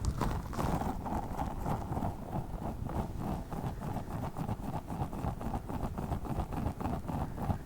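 Tiny spiky Orbeez-filled squishy balls being squeezed and handled rapidly, a fast run of soft squishing and clicking noises, several a second.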